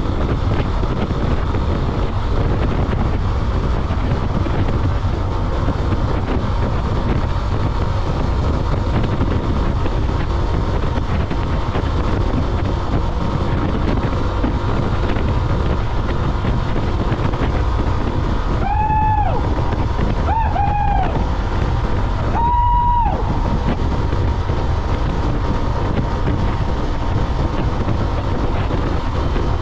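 Steady road and wind noise of a car driving at speed. About two-thirds of the way in, a vehicle horn sounds three short beeps, the last a little longer and higher.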